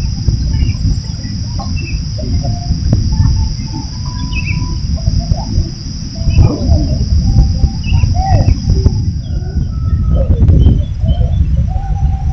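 Birds chirping and calling in many short, scattered notes over a heavy low rumble, with a steady high-pitched hiss that cuts off about nine seconds in.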